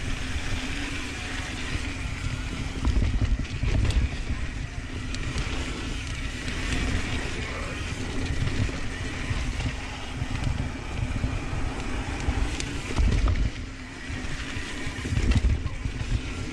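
Santa Cruz Tallboy mountain bike riding fast down a dirt trail: tyres rolling over dirt and rock with wind rushing over the camera microphone, the low rumble swelling in several louder surges.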